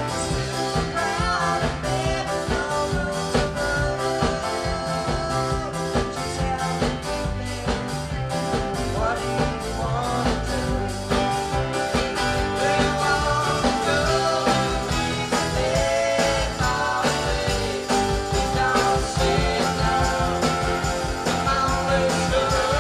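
Live rock band playing a song, with drums, bass and guitar and a singing voice, recorded on cassette.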